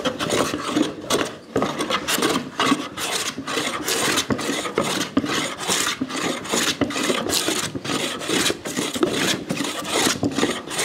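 Hand plane shaving the end-grain face of a maple and walnut cutting board in quick, repeated strokes, flattening out its high spots.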